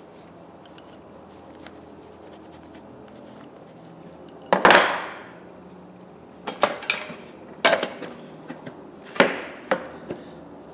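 Metal tools clattering on a workbench: a few light clicks, then a loud ringing clank about halfway through, followed by several smaller metallic knocks.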